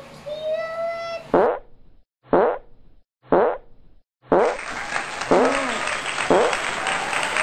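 Edited-in cartoon sound effects: three quick falling pitch sweeps about a second apart, with dead silence between them, then a rush of noise with two more falling sweeps over it.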